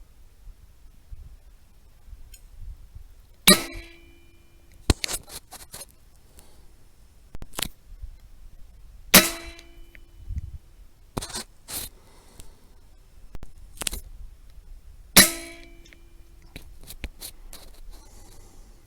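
Three rifle shots about six seconds apart, each a sharp crack with a short metallic ring. Between the shots come smaller clicks and clacks.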